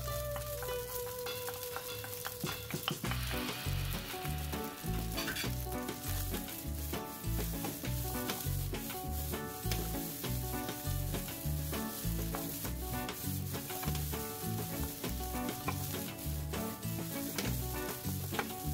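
Fried rice sizzling in a nonstick frying pan while a wooden spatula stirs and tosses it, with frequent short scraping strikes against the pan. Background music with a steady bass beat plays underneath.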